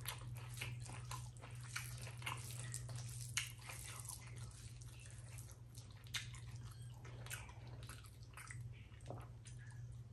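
Wet, sticky clicks and squelches of a bare hand mashing rice with potato bharta and dal, mixed with close-miked chewing. A steady low hum runs underneath.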